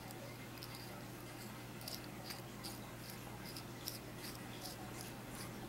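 Faint, scattered small clicks and scrapes of a CE5+ clearomizer's parts being handled and screwed together, over a low steady hum.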